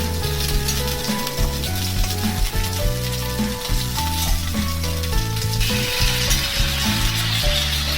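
Food sizzling as it fries in a pan, with a steady hiss that grows louder about six seconds in, under background music with a steady beat.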